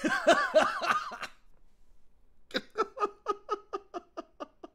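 A man laughing hard: a loud, high-pitched burst of laughter, then after a short pause a run of quieter, rhythmic giggles, about five a second, fading out.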